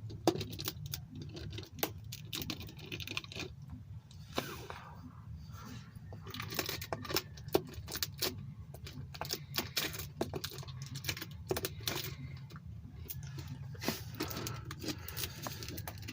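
Protective plastic wrap being peeled and torn off a new oil filter by hand: irregular crinkling and small clicks over a low steady hum.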